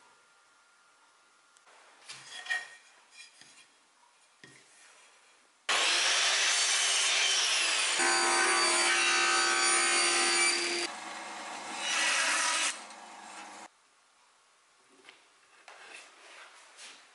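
Table saw cutting a thin strip of wood: a loud, steady run of saw noise for about eight seconds in the middle, which stops abruptly. Before and after it come faint small sounds of wood being handled and a chisel paring the moulding.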